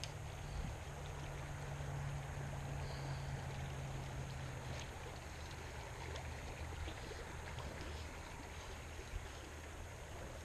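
Shallow creek flowing steadily over riffles: a soft, continuous rush of running water.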